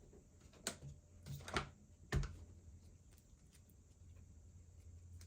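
A few light clicks and knocks of plastic parts being handled: a small 2S LiPo battery and its connector being set into an RC crawler's battery holder. The sharpest knock comes a little after two seconds in, over a faint steady hum.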